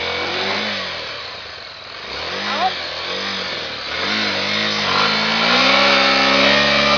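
Honda Tornado 250 single-cylinder motorcycle engine revved several times in short rises and falls, then pulled up to higher, held revs near the end.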